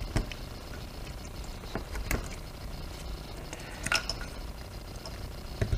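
Plastic electrical connectors of a wiring harness being pressed onto the fuel injectors of a motorcycle throttle body, giving a few sharp clicks spaced a couple of seconds apart as they snap into place, with soft handling of the wires between.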